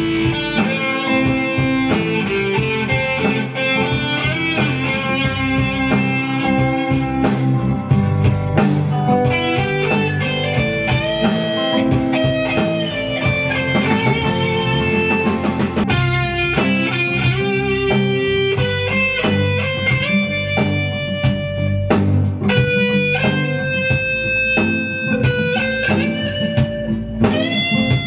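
Electric guitar playing a melodic lead line of single notes over a steady low accompaniment, with held notes and string bends that rise and fall in pitch near the end.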